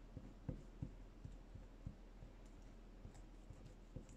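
Faint, scattered soft clicks and taps, half a dozen at irregular intervals, as hands press a freshly glued paper doily down onto a paper tag.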